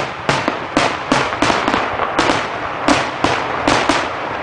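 Aerial fireworks in a grand-finale barrage: a rapid string of bangs, about three a second, each trailing off in crackle and echo.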